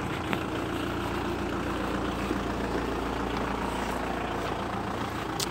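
A vehicle engine idling steadily, a low even hum, with a sharp click near the end.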